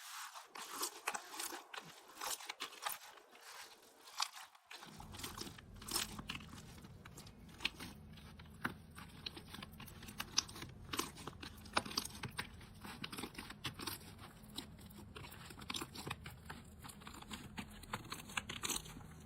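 Crunchy slime being squeezed and pressed by hand, giving dense, irregular crackling clicks. A low steady hum comes in about five seconds in.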